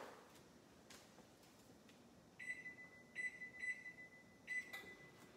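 Countertop microwave oven's keypad beeping four times as its buttons are pressed to set the cook time and start it: short, high, steady-pitched beeps over about two and a half seconds, starting about two seconds in.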